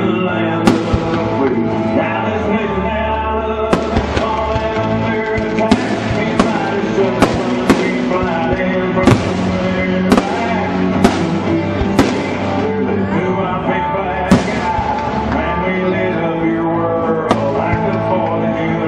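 Aerial fireworks shells bursting, about a dozen sharp bangs at irregular intervals of roughly half a second to three seconds. Loud music plays steadily underneath.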